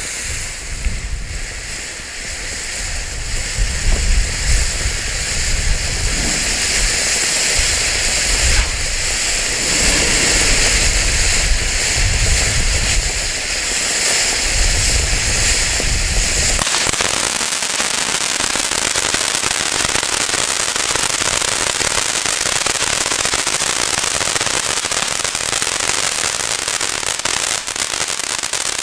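Large Diamond fountain tube (50 g firework fountain) burning with a loud, continuous hissing rush of sparks and a low rumble. About two thirds of the way through the sound changes to a brighter, even hiss with fine crackling.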